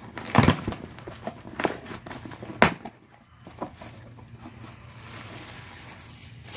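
A cardboard shipping box being opened and unpacked: a few sharp knocks and scrapes in the first three seconds, then soft, steady rustling of packing material.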